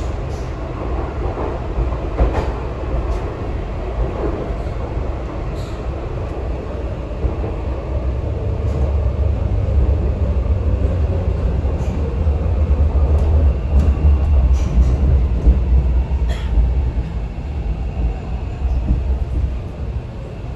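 Inside a Hong Kong MTR C-train metro car under way: a steady deep rumble of wheels on rail and the car body, growing louder through the middle and easing again near the end, with occasional faint clicks.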